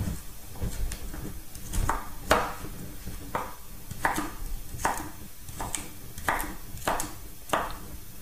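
Large kitchen knife chopping raw vegetables into chunks on a wooden chopping board: about a dozen separate cuts, each a sharp knock of the blade on the wood, a little under one a second.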